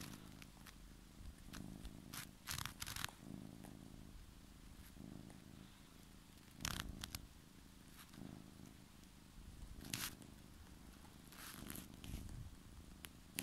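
Domestic cat purring close up, the purr swelling and fading with each breath. Now and then come short scratchy rustles of its claws catching on fabric as it kneads.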